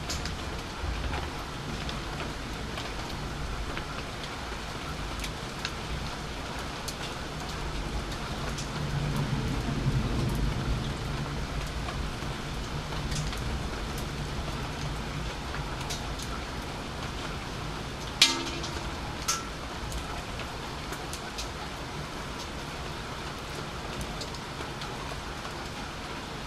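Steady rain falling during a thunderstorm, with scattered drops tapping close by. A low rumble swells and fades in the middle, and a single sharp tap comes about two-thirds of the way through.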